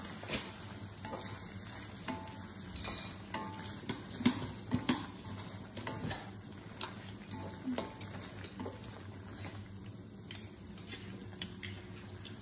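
Wooden chopsticks stirring chicken pieces and dried chillies around an aluminium wok, with irregular knocks and scrapes against the pan, the loudest two a little before halfway.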